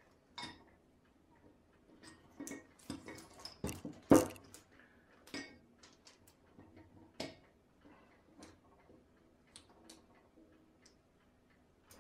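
Scattered small metal clicks and clinks as the piston and handbrake-adjuster assembly is pushed and worked into the bore of a single-piston sliding rear brake caliper, with one sharper knock about four seconds in.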